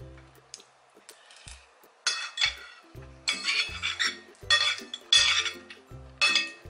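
Two metal forks scraping and clinking against a plate in about five short bouts, starting about two seconds in, with background music under them.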